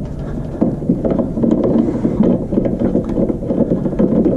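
Robertson screwdriver loosening the screws of a metal ceiling electrical box: a run of small clicks and scraping of the driver tip and screw against the box, over a continuous low rumbling noise.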